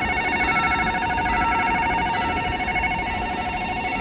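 Railway level crossing warning bell ringing steadily in rapid repeated strikes, signalling an approaching train, over a low rumbling noise.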